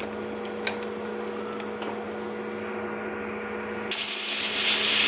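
Pressure cooker on the stove venting steam: a steady hum, then about four seconds in a sudden loud hiss of steam escaping from the lid as pressure builds.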